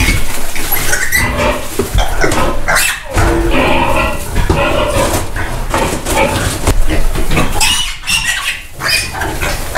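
Piglets squealing loudly in distress at being caught and held up by their hind legs, the squeals nearly continuous with short lulls about three seconds in and again near eight seconds.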